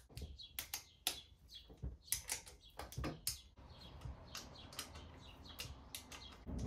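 Irregular run of light metallic clicks and taps from a T-handle spanner being fitted to and turned on the cam-cover bolts of an aluminium motorcycle cylinder head, tightening them down.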